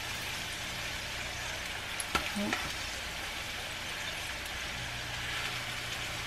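Oil sizzling steadily as filled tortillas fry on a flat griddle (comal). About two seconds in, a couple of sharp clicks come from a cooking utensil against the griddle.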